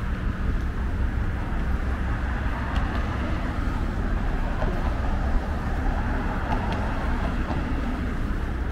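Steady outdoor street ambience with a constant low rumble.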